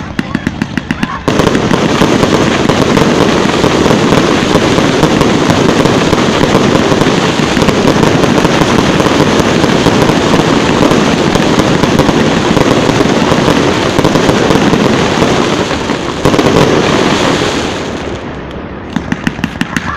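Fireworks salute bursting at close range. A quick run of sharp pops about a second in gives way to a dense, continuous barrage of bangs and crackling. It thins out briefly near the end before another run of pops.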